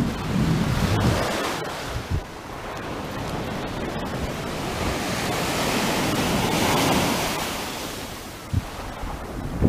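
Shore surf washing up the beach and swirling around the wader's legs. The wash swells to its loudest past the middle and then fades, with wind rumbling on the microphone near the start.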